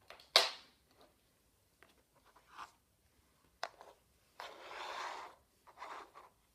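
Handling noises from a nylon LED dog collar: a sharp click about half a second in, then small ticks and two spells of rustling and scraping as a hand works the collar on a wooden floor.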